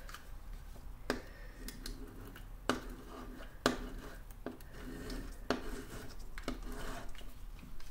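Glue tape roller pressed and dragged over paper, giving a series of sharp clicks with a low scraping rub between them. The roller is stiff and hardly rolls, its tape twisted into an extra loop.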